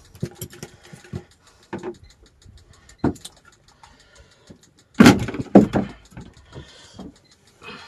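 Handling knocks on a small wooden boat while a just-caught small snapper is unhooked from a handline: scattered clicks and light knocks, then a cluster of loud thumps about five seconds in.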